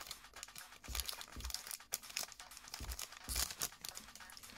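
Foil Pokémon booster-pack wrapper crinkling and rustling in the hands in irregular bursts as the pack is opened, with a few soft knocks of handling.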